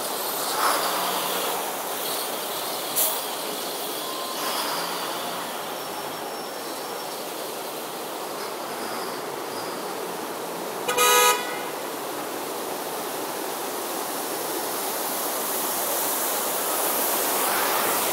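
Buses and cars driving through a flooded street, a steady wash of water spray and tyres, with one short vehicle horn toot about eleven seconds in. The wash grows louder near the end as a bus passes close.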